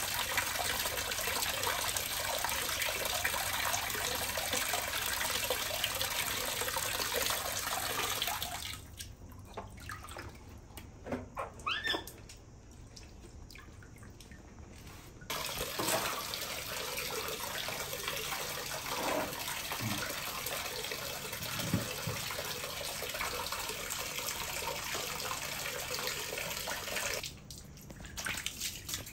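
Water from a tap pouring and splashing into a plastic basin already full of water. The flow stops about a third of the way in and starts again about halfway, and stops again near the end. A few brief squeaks sound during the first gap.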